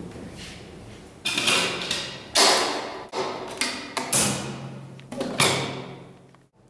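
Several sharp clunks about a second apart, each ringing out briefly in the metal-walled lantern room of a lighthouse, as the hinged cover and isolator switches of a navigation-light switch box are handled.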